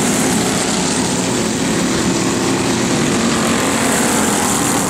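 Racing go-kart engines running at speed on the track: a loud, steady drone of overlapping engine notes.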